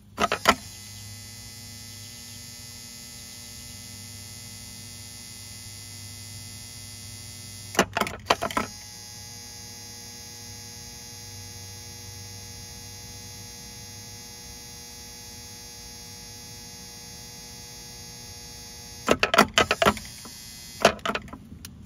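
Electric motor of a Volvo Penta SX-A power trim/tilt pump running steadily with an even hum after its repair. Short loud knocks come about a second in, about eight seconds in, and near the end.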